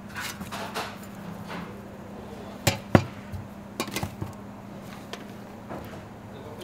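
Hard knocks of a metal spice shaker and a ceramic bowl being set down and moved on a stainless-steel counter: two loud ones close together about halfway through, then a few lighter taps, over a steady low hum.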